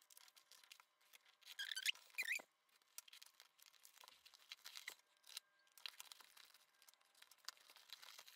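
Faint rustling and crinkling of parcel packaging being unwrapped by hand, with scattered small clicks and two brief squeaky tearing sounds about two seconds in.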